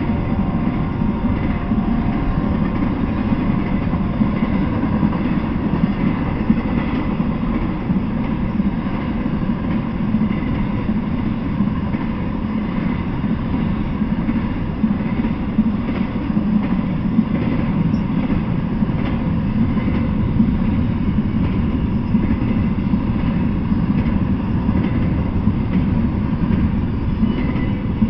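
Double-stack intermodal freight train rolling past close by: a steady, unbroken rumble of wheels on rail and cars going by.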